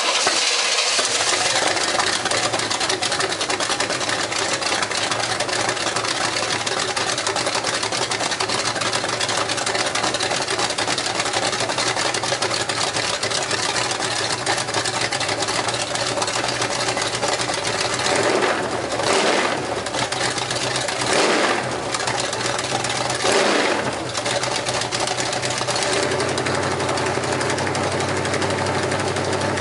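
A 1970 400 small-block Chevy V8 fires on the starter button and runs at a fast idle. About two-thirds of the way in it revs up briefly three times, then settles to a lower, steadier idle near the end.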